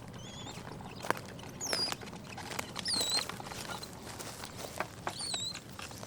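Capuchin monkeys giving short high-pitched whistling chirps, about five separate calls a second or two apart, each dipping in pitch and then levelling off. Light scattered clicks and rustles sound between the calls.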